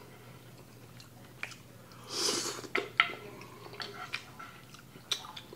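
Slurping and wet chewing of jjajangmyeon (black bean sauce noodles), with one long slurp about two seconds in followed by a few sharp clicks and smacks.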